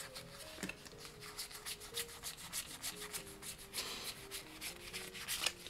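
Rustling and crinkling of a plastic-wrapped Pokémon card pack and its cards being handled: many small scratchy rubs close together. Soft background music plays underneath.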